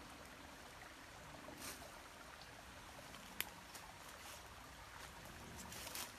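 Faint steady outdoor background hiss, with soft rustles of dry fallen leaves as a person gets up and steps on a leaf-littered slope, and one sharp click about three and a half seconds in.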